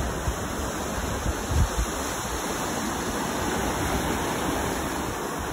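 Ocean surf breaking and washing on the beach, a steady rushing noise.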